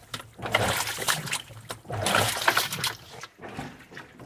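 Water sloshing and splashing around clothes in a small portable washer as it churns, coming in repeated surges with short lulls between.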